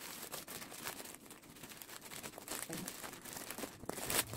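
Plastic mailer bag crinkling and rustling as it is cut open with scissors and pulled apart by hand, with irregular small snips and crackles.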